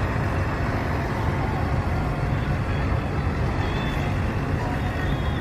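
Engine of the STJ Samoa intercity bus running with a steady low rumble.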